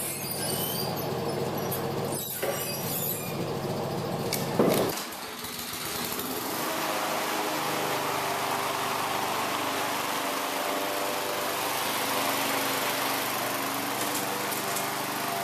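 For about the first five seconds a deeper machine rumble with a few knocks and one loud clunk. Then a walk-behind lawn mower's small four-stroke engine runs steadily, freshly refilled with oil after blade sharpening.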